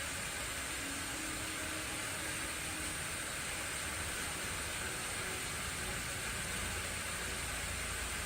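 A steady hiss over a low rumble, unchanging throughout, with no knocks or clicks.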